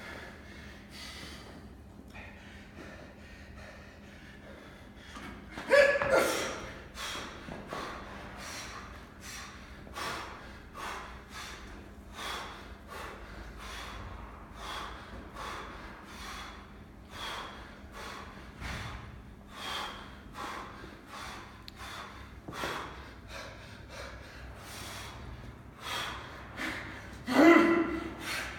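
A man breathing hard under exertion: a sharp gasping breath about once a second, in time with repeated barbell reps, with a louder grunt about six seconds in and another near the end.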